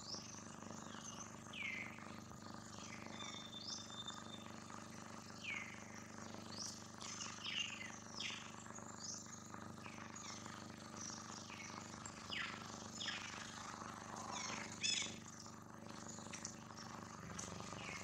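Birds chirping: many short, quickly falling chirps repeated at irregular intervals, with a denser flurry of calls near the end.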